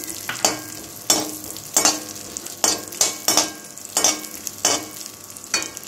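Slotted metal spatula stirring cashews and almond flakes around a metal kadhai as they roast in ghee. Repeated short scrapes, roughly two a second, over a light sizzle.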